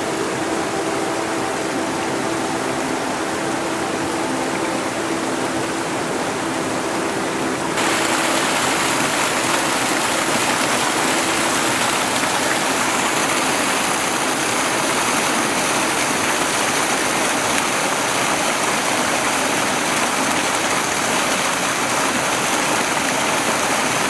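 Steady rush of a small stream pouring and splashing between boulders. It gets louder and fuller about eight seconds in, then holds steady.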